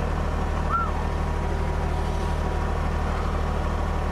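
Kubota BX2680 tractor's three-cylinder diesel engine running steadily at a low idle, heard from inside the cab, with the cab heater fan blowing on high.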